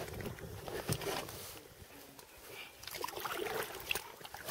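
Faint splashing and lapping of river water against an inflatable rubber boat under way, with a few small knocks.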